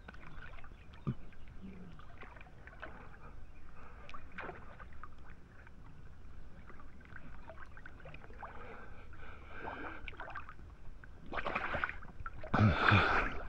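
Swimming pool water stirring and lapping softly as swimmers move slowly through it, with small drips and clicks; a louder splash of water near the end.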